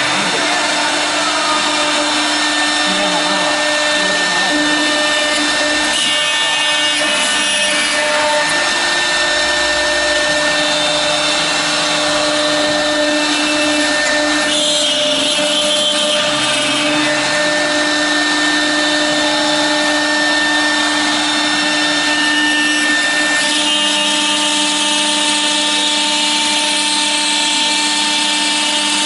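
1325 CNC router's spindle milling clear acrylic sheet: a steady whine of held tones over a dense hiss from the cutter chewing through the plastic, the pitch shifting a few times as the cut goes on.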